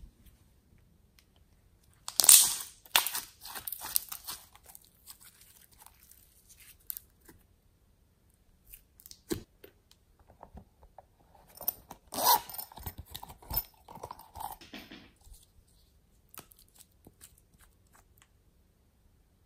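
Glossy slime being stretched and pulled apart by hand, giving crackling, tearing and popping sounds in two bursts, the louder one a couple of seconds in and a second one past the middle, with quiet and a few faint clicks between and after.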